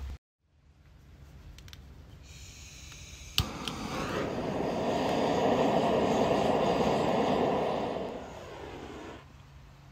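Handheld gas torch lighting wood in a metal bucket stove: a hiss, a sharp igniter click, then the flame rushing steadily for about five seconds before it shuts off.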